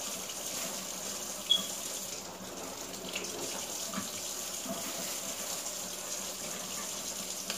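Kitchen faucet running steadily into a sink, with one short sharp clink about a second and a half in.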